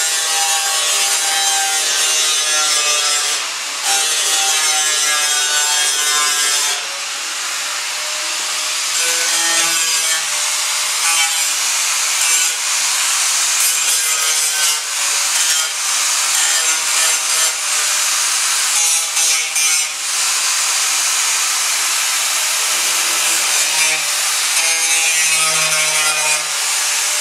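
Electric grinder working on the car's sheet-metal body, a motor whine that wavers in pitch as it is pressed to the work over a harsh hiss of abrasion, with a few brief lifts off the metal.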